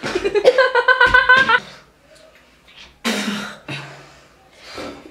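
A man's vocal reaction to a foul-tasting drink: a high, pulsing cry for about a second and a half, then a harsh gag-like cough about three seconds in and a shorter breathy one near the end.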